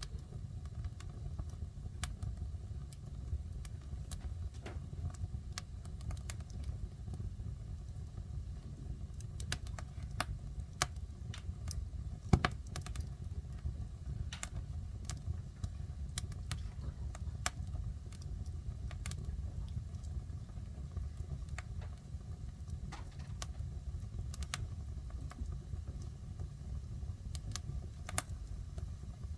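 Wood fire burning in a fireplace, crackling with irregular sharp pops over a steady low rumble; the loudest pop comes about 12 seconds in.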